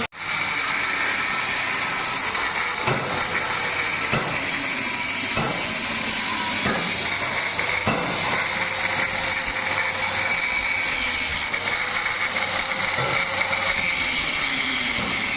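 Workshop machinery running with a steady hiss, and a series of evenly spaced knocks, about one every second and a quarter, during the first half.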